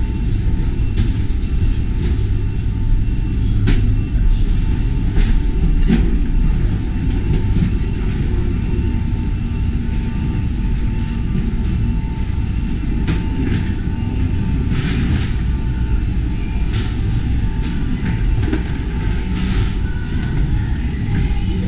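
Steady low rumble of rolling suitcase and wheelchair wheels moving along a boarding gangway floor, with scattered knocks and clicks from the wheels and footsteps.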